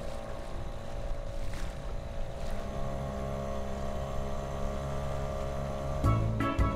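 Small outboard motor on an inflatable dinghy running at a steady pitch underway, with wind and water rushing past the hull. Music comes in near the end.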